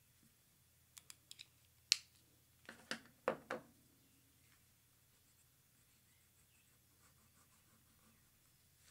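A few light clicks, then a sharper click and a handful of duller knocks from about two to three and a half seconds in: drawing tools being handled and set down on the table. Faint pencil strokes on paper follow near the end.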